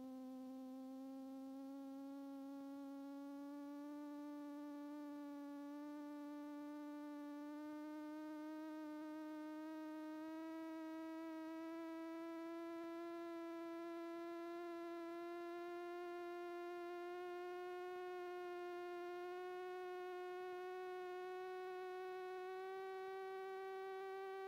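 A steady buzzing drone rich in overtones, its pitch creeping slowly upward with no breaks; no voices are heard.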